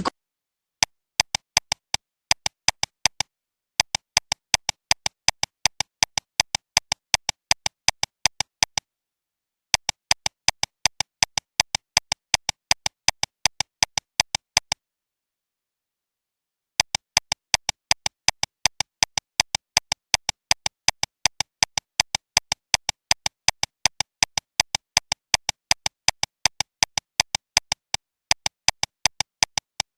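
Sharp, identical electronic clicks repeating about four times a second against dead silence, in runs broken by pauses of one to two seconds.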